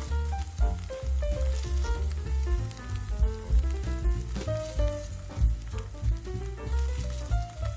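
Tofu sizzling as it fries in a pan, a fine crackle over background music with a melody and steady bass.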